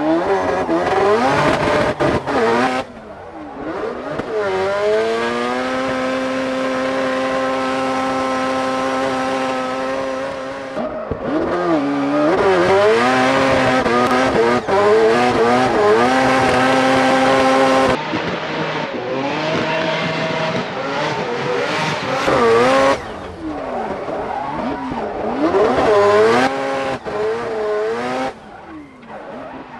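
Drift car's engine revving hard through a long slide, its pitch held steady for several seconds, then dropping and climbing again and again as the throttle is lifted and stabbed, over the screech of spinning tyres.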